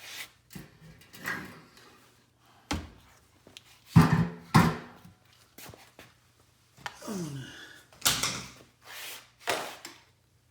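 Metal clunks and knocks as a front drive axle is worked into place under a car, with scraping between the knocks. The loudest knocks come in a pair about four seconds in, and more follow near the end.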